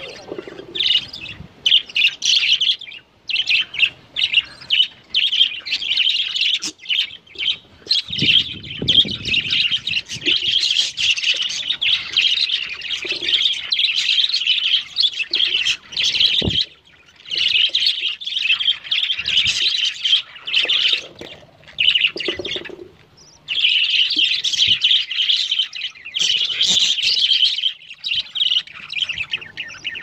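Newborn budgerigar chicks cheeping rapidly while the hen budgie feeds them: high, thin begging calls in long runs broken by short pauses.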